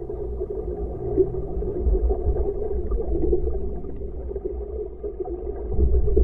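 Muffled rumble of water rushing past a moving rowing eight, heard through a GoPro's waterproof housing, with nothing bright or high-pitched in it.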